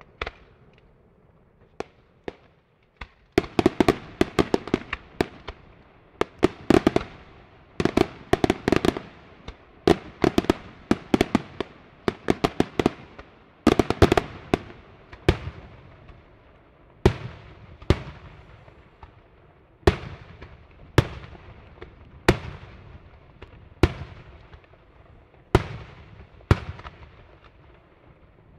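Daytime fireworks: aerial shells bursting overhead with sharp bangs, a few scattered at first, then dense rapid-fire clusters for about ten seconds, thinning to single or paired reports about once a second for the rest.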